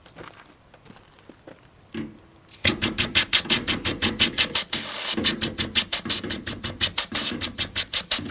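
Compressed-air pulsator firing rapid, evenly spaced blasts of air, several a second, to clean a wood gasifier's gas filter; it starts about two and a half seconds in after a few light knocks, with a short steady hiss around the middle.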